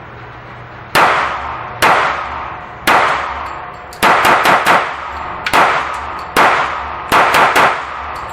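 SIG Sauer P229 pistol in .40 S&W being fired, about eleven shots with a ringing echo after each: three slow single shots, then a quick string of three, two more singles, and a final quick string of three.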